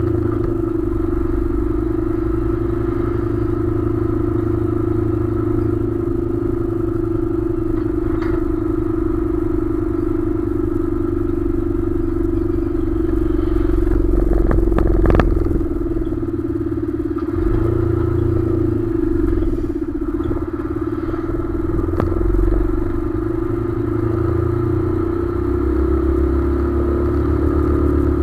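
Container truck under way, its diesel engine running with a steady drone and the skeletal trailer chassis rattling behind the cab. A cluster of sharp knocks and clatters about halfway through, with single knocks before and after.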